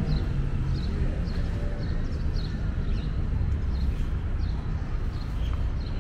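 City ambience: a steady low rumble of distant traffic with a bird chirping over it, about two short high chirps a second.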